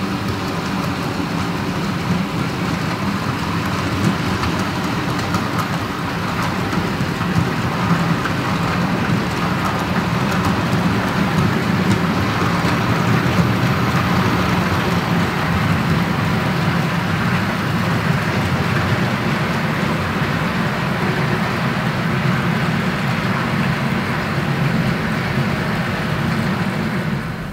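HO scale model goods train running along the track: the Auscision X34 and Austrains T387 model locomotives' motors whirring and the wagons' wheels rolling over the rails. It is a steady sound, a little louder around the middle as the train passes closest.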